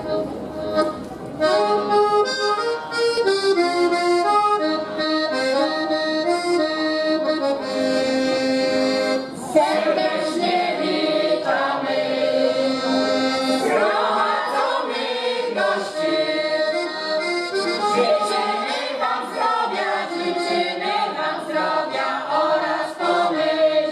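Piano accordion playing a folk tune, with a group of women's voices joining in unison about ten seconds in.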